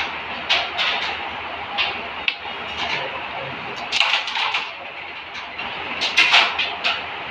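Carrom striker flicked across a wooden carrom board, giving a quick clatter of sharp clicks as it strikes the carrom men about four seconds in. Another cluster of clicks comes about two seconds later, with single lighter clicks between.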